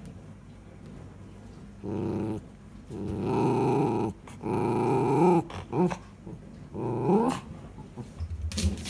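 Miniature schnauzer giving a string of about five drawn-out growling grumbles, some rising in pitch at the end, the demand noises it makes to have its ball thrown. A few short clicks come near the end.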